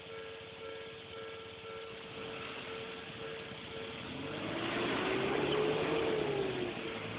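Railway level-crossing warning bell ringing in a steady repeating clang while a train passes from about four seconds in. The pass swells to its loudest near six seconds, with a motor whine that rises and then falls in pitch.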